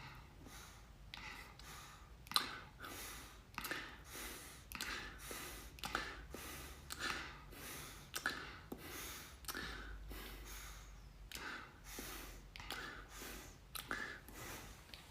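A man making exaggerated breathing sounds in imitation of a dog: short, noisy in-and-out breaths repeating about twice a second.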